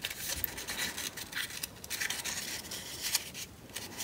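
Paper rustling and rubbing as fingers handle a rolled paper cone and press small glued paper pieces onto it, in uneven soft scrapes.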